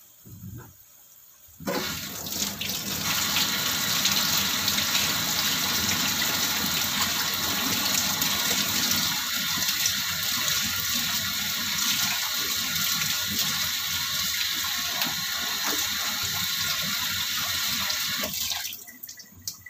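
Kitchen tap running in a steady rush, turned on about two seconds in and shut off shortly before the end.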